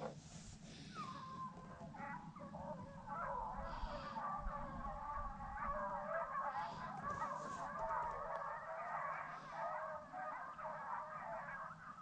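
Pack of rabbit hounds baying together in full cry on a rabbit's trail, many overlapping voices starting about a second in and carrying on steadily.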